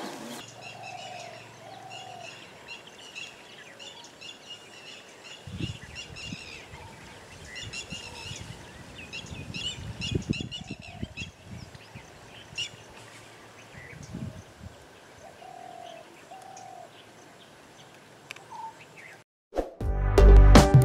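Several birds chirping and singing in woodland, with a lower two-note call twice, and irregular low rumbling thuds through the middle. About a second before the end a loud musical chime with a beat starts.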